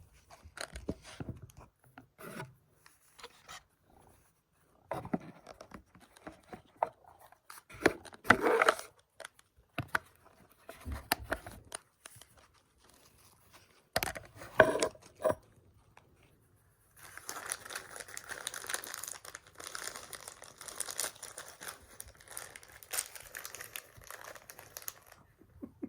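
Packaging being torn open and crinkled by hand, with rubbing and scraping in short bouts, then a longer stretch of steady rustling crinkle.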